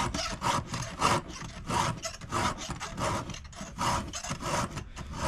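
Hand file rasping across the cutter teeth of a chainsaw chain in steady, even strokes, about three every two seconds.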